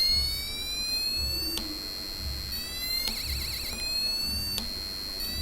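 Passive piezo buzzer driven by an Arduino sounding a police-siren alarm: a high wailing tone that slowly rises, broken twice by a steady higher beep and once by a fast warble.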